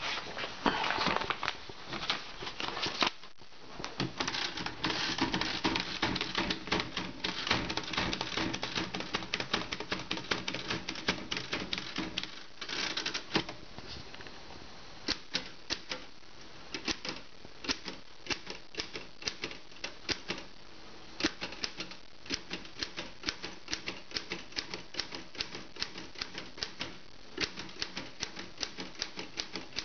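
Vintage Royal manual typewriter being typed on, its keys clacking in a fast, dense run for about the first half. After that the strikes come slower and more spaced, with short pauses between bursts.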